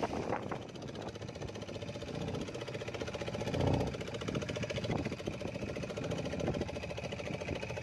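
Fishing boat's engine idling steadily with a fast, even pulse, and a dull thump about halfway through.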